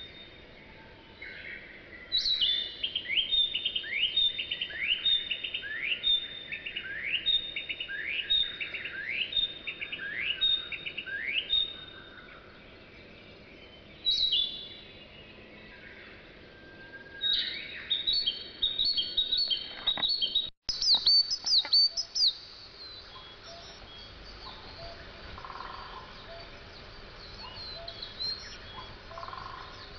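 Wild songbirds calling in mountain forest: a series of quick rising notes repeated about twice a second for the first twelve seconds, then other high, shorter calls in the second half.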